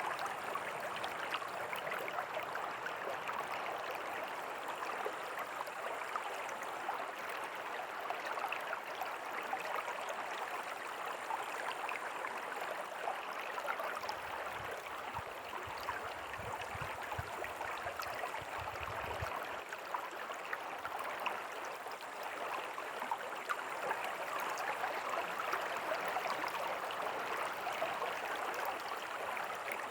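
River water flowing steadily: an even rush of water with many small splashing, bubbling ticks. A faint low rumble joins it for about five seconds around the middle.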